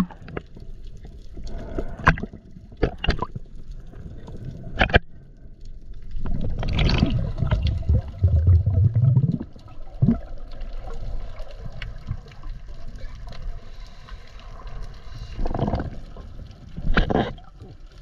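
Sea water splashing and gurgling, broken by several sharp knocks or splashes. A louder rush of water with a low rising gurgle comes about seven seconds in, and more loud splashes near the end.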